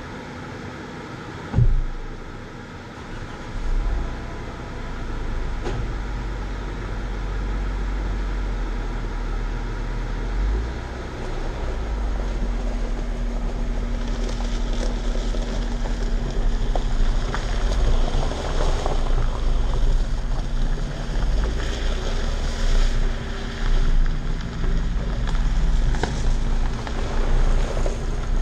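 A sharp thump about two seconds in, then a Jeep's engine running steadily as it drives slowly along a gravel and dirt trail. Low wind rumbles on the outside-mounted microphone, and tyre and gravel noise grows louder in the second half.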